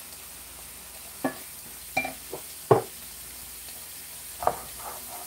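Chopped vegetables sizzling in a nonstick frying pan as a wooden spoon stirs them, with about five sharp knocks of the spoon against the pan, the loudest near the middle.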